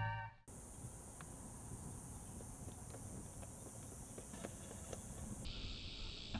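Music cuts off about half a second in. Then faint outdoor ambience follows, with a steady hiss and scattered light ticks, and a brief higher-pitched buzz near the end.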